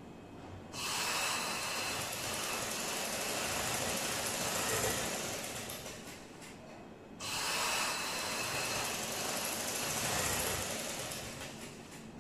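Sewing machine running in two bursts of about five and four seconds, each starting suddenly and dying away, as it stitches a trouser seam.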